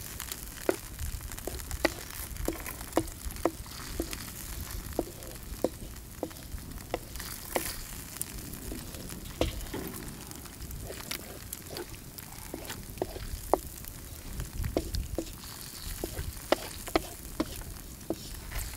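Chicken pieces frying in a creamy butter-and-sour-cream sauce in a wide black metal pan, sizzling steadily. A wooden spatula stirs and knocks against the pan with short taps, irregularly about one or two a second.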